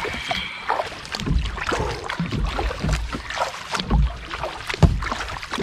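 Kayak paddle strokes in river water, a splash and swish about once a second, with wind buffeting the microphone.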